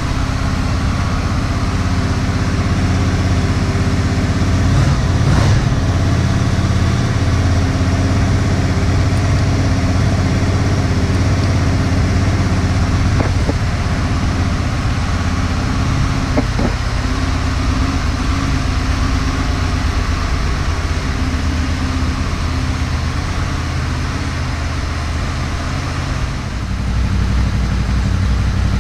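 Honda VFR800 VTEC's V4 engine idling steadily while it warms up after a cold start, growing a little louder near the end.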